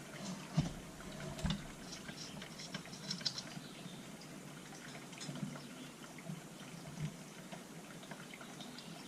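Faint handling noise: scattered small clicks and taps as chainsaw carburettor parts and a gasket are handled and fitted by hand.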